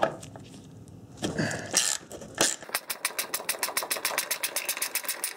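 A ratchet wrench clicking fast and evenly, about ten clicks a second, as a socket backs out a bolt holding the plastic lower splash shield. Handling knocks come first, and the clicking starts partway in.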